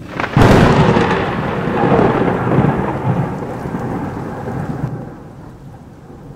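A sudden clap of thunder about half a second in, followed by a rolling rumble that slowly fades over about four seconds into a softer steady noise.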